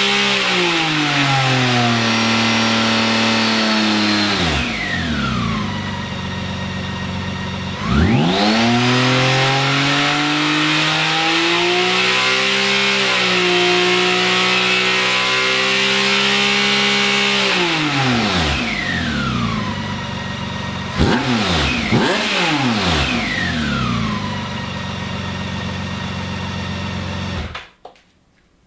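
BMW K1600GT's inline six-cylinder engine revving through its exhaust. The revs fall back to idle, a sharp rev is held high for several seconds and then falls away, two quick blips follow, and after a short idle the engine cuts off near the end.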